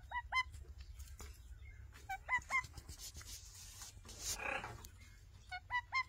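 Alexandrine and ring-necked parakeets giving short, upward-sliding calls in quick runs of about three: near the start, about two seconds in, and again near the end. A brief harsh rushing noise comes a little past the middle.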